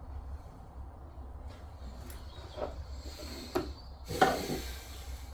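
Plumbing fittings and tools being handled: a few soft clicks and knocks, then a short scraping rub about four seconds in, over a steady low hum.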